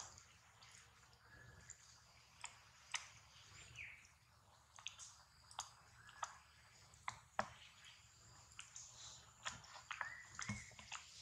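Near silence with scattered faint clicks and ticks, a faint steady high tone, and a few short faint chirps.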